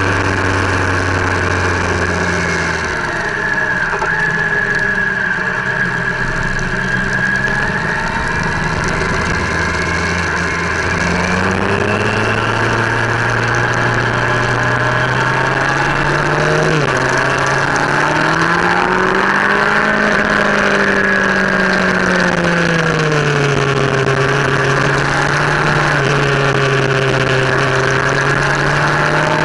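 Motorcycle engine running at riding speed through a series of bends, with wind noise. The engine pitch drops about three seconds in, then climbs again and rises and falls as the throttle opens and closes through the curves.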